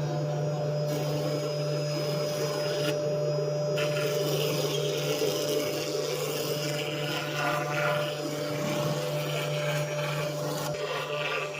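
4-axis CNC router running and cutting. Its spindle and drives keep up a steady hum with a steady higher tone, while the noise of the cutter working the material rises and falls.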